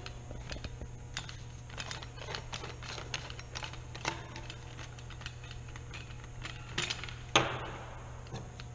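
Light, scattered clicks and knocks of white plastic sink drain pipes and fittings being handled and pushed together, with one sharper knock about seven seconds in.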